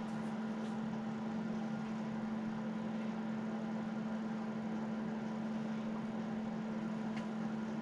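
Paint sprayer running steadily while camo paint is sprayed: a constant motor hum over an even hiss of air.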